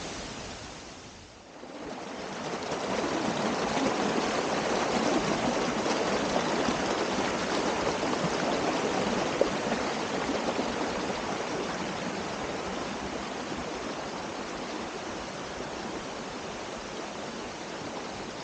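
Waterfall on a small stream rushing steadily. The sound fades briefly about a second and a half in, then swells back and slowly eases.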